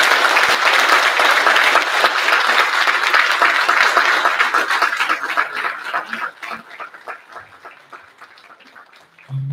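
Audience applauding, dense at first, then thinning to scattered individual claps and dying away near the end.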